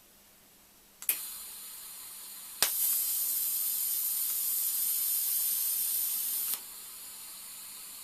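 TIG welding arc on stainless steel hissing. It strikes with a sharp crack about a second in and gets louder with a second crack at about two and a half seconds. It drops back to a quieter hiss about a second and a half before cutting off at the end.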